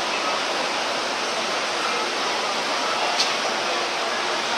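Steady din of a large indoor crowd, many voices blending into an even wash with none standing out, and one short sharp click about three seconds in.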